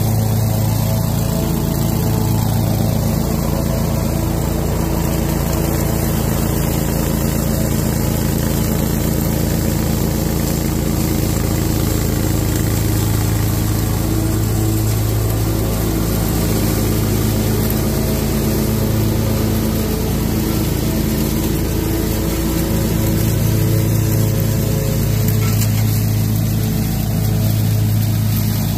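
Toro Proline 60-inch mower with a leaf blower attachment, its engine running steadily under load.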